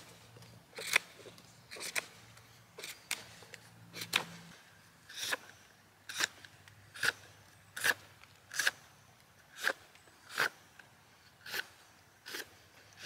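A file knife whittling a dry spruce stick: a series of short, sharp shaving strokes, about three every two seconds.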